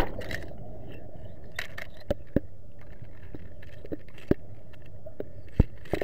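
River water below a weir heard through an underwater camera: a steady, muffled low rush, with about half a dozen sharp clicks and knocks scattered through it. It opens with the tail of a splash as the camera goes under.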